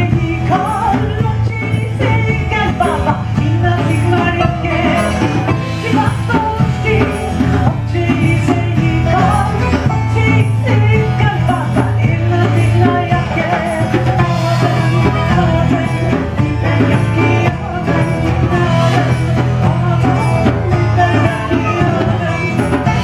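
Live folk band playing upbeat gypsy-style music: plucked lute-type string instruments and a guitar over drums, with a steady low note running underneath.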